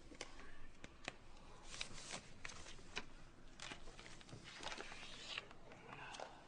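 Faint paper rustling and scratching with scattered light clicks and taps on a school desk, in several short bursts.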